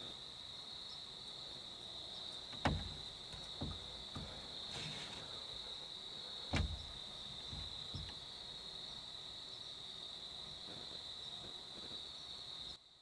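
Steady, high-pitched chirring of crickets, one unbroken tone, with two sharp knocks at about three and seven seconds in and a few fainter ones. The chirring cuts out just before the end.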